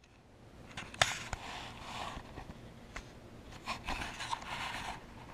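Handling noise from a body-worn camera being moved: rustling and scraping, with a sharp click about a second in and a few fainter clicks after.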